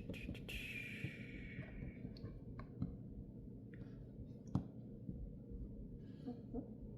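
A plastic blind-bag wrapper being torn open with a brief hiss, followed by scattered light clicks and taps of a small plastic toy being handled, one sharper tap a little after halfway.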